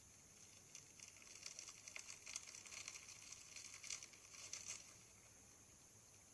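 Crunchy slime being squeezed and worked by hand: a faint run of small crackles and pops, starting about a second in and stopping after about four seconds.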